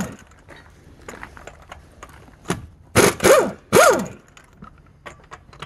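A dog barks three times in quick succession about three seconds in, over faint scattered clicks and taps.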